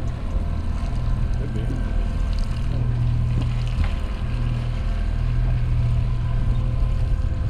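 Boat engine running steadily: a low hum that swells and eases every second or two, with faint steady tones above it.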